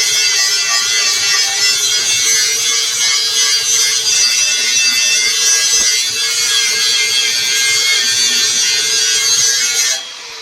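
Stick-welding arc crackling and hissing steadily as a 3/32" electrode is run on rusted steel pipe at about 75 amps, then cutting off suddenly near the end as the arc is broken.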